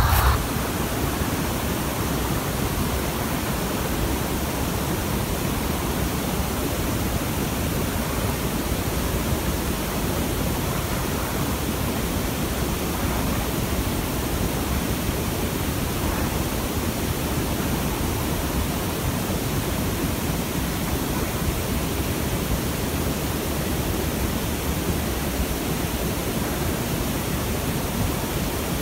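Steady, even rushing noise like hiss or wind on the microphone, with no shot or other distinct sound in it.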